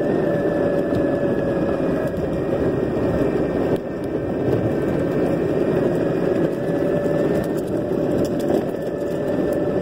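Electric longboard cruising at steady speed: the motor gives a steady whine over the rumble of its wheels rolling on asphalt.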